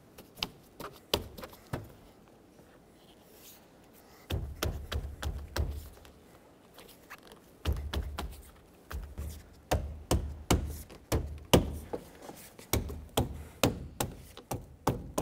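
Gloved hand tapping a rubber door weatherstrip seal onto the door-opening lip of a Toyota Tacoma's body, seating it so it locks in place. Dull taps and thumps, scattered at first, then a steady run of about two a second in the second half.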